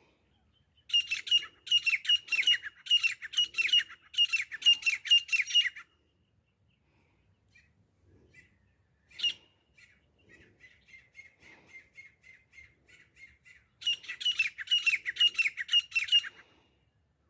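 Grey francolin calling: two loud runs of repeated shrill notes, about two a second, with a single sharp note and a softer, quicker series of notes between them.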